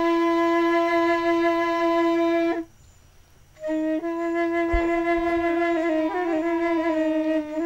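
A flute playing long held notes. The first note breaks off for about a second partway through, then the same note returns and steps down in pitch a couple of times near the end.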